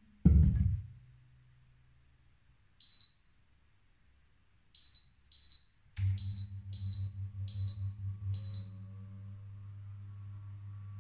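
A knock, then a cooktop's touch controls beeping as it is switched on: a few single beeps, then a quick run of five beeps. A low steady hum starts with that run about six seconds in and keeps going.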